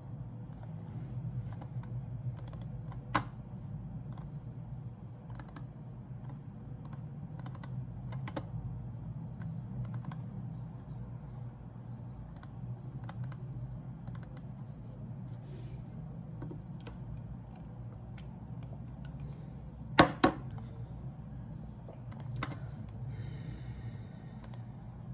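Scattered light clicks and taps over a steady low hum, with two sharp knocks close together about twenty seconds in.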